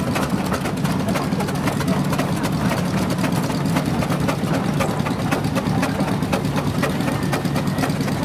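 Steam traction engine driving past at walking pace: a steady mechanical clatter of its motion and gearing, with rapid fine ticks over a low steady hum.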